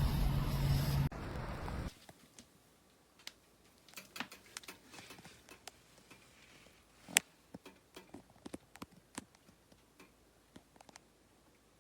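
A loud, steady noise with a low hum that cuts off suddenly about two seconds in, followed by scattered light clicks and taps at irregular intervals, the sharpest about seven seconds in.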